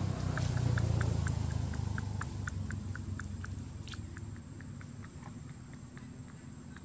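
Baby macaque suckling at its mother's teat: a quick run of soft clicks, about three or four a second, that thins out a little past halfway. Under it a low rumble fades away over the first couple of seconds.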